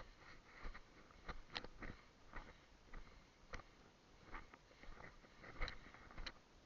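Faint, irregular crackling and rustling: about a dozen small crisp clicks scattered unevenly.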